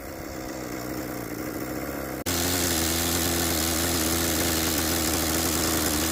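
Kyosho Blizzard's small nitro glow engine idling steadily. About two seconds in, the sound jumps abruptly louder and stays at that level.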